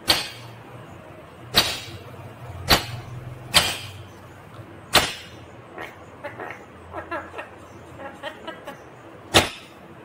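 Indian ringneck parakeet (rose-ringed parakeet) giving six loud, short, sharp screeches, irregularly spaced, with softer quick chattering in the gap before the last one.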